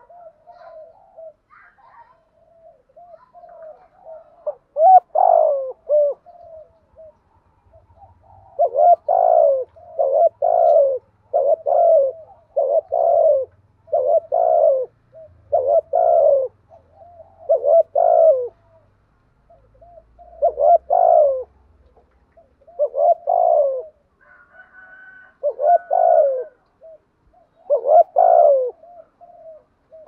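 Spotted dove cooing in the rapid, repeated 'thúc gù' style. A few soft coos come first, then from about a third of the way in a long run of short coo phrases, roughly one a second, with a few more near the end.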